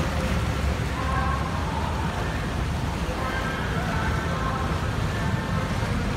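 Motorboat engine running steadily under way, a low drone with water rushing along the hull.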